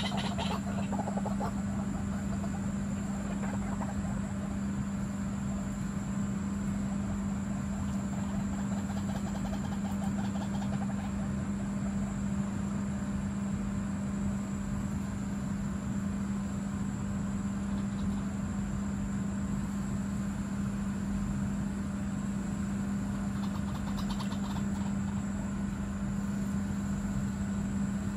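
A steady low hum on one unchanging pitch, over a constant wash of outdoor noise.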